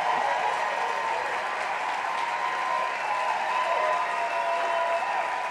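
Theatre audience applauding steadily, easing off slightly near the end.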